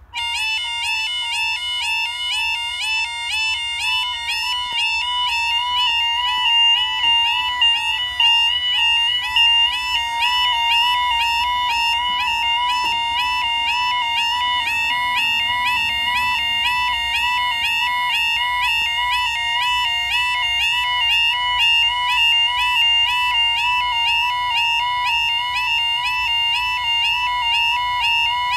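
Level crossing's electronic warning alarm, starting abruptly at the beginning and sounding continuously as a loud, rapid, evenly repeating warble. It signals the crossing sequence for an approaching train while the barriers come down.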